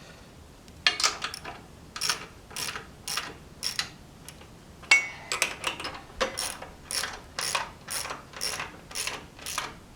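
Ratchet wrench clicking through repeated strokes, about two a second starting about a second in, as bolts are run down snug.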